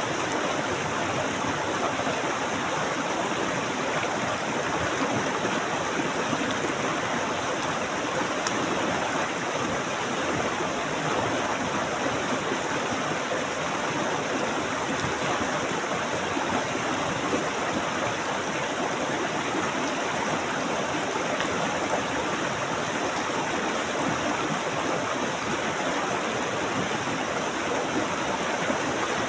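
A stream of water flowing steadily, a constant rushing and babbling with no breaks.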